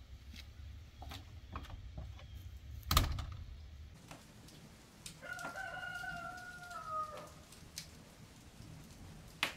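A rooster crows once, a drawn-out call of about two seconds that falls slightly at the end, a little past the middle. Scattered clicks and knocks surround it, with a sharp knock about three seconds in and another near the end.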